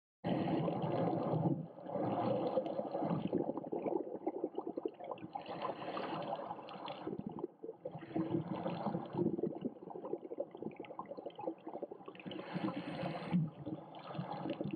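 Dull water gurgling and sloshing picked up underwater, swelling and fading in surges every couple of seconds.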